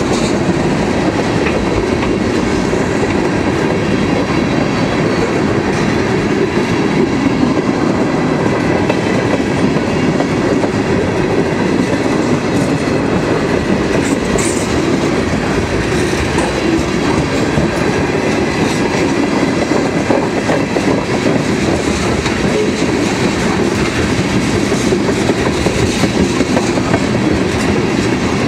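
Freight train of tank cars rolling past at close range: loud, steady rumble and clatter of steel wheels on the rails, unbroken throughout.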